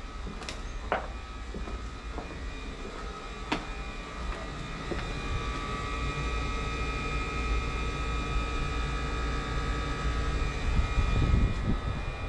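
A steady mechanical hum over a low rumble, with a few sharp clicks in the first seconds. From about five seconds in, a steady high whine joins it, and the rumble swells near the end.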